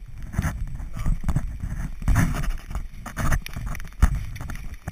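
Rustling and rubbing of a rain jacket against the camera microphone, coming in uneven bursts about once a second, with a low rumble under it.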